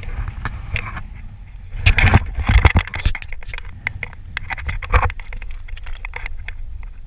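Wind rumbling on the microphone, with many sharp clicks and scrapes of loose flat rocks shifting as a landed brook trout flops on the stones and feet step on the scree, a dense burst of clattering about two seconds in.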